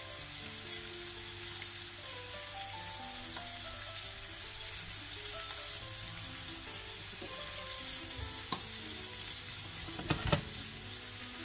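Flour-dusted plaice shallow-frying in olive oil in a stainless steel pan: a steady, gentle sizzle on a lowered heat. A brief knock sounds near the end.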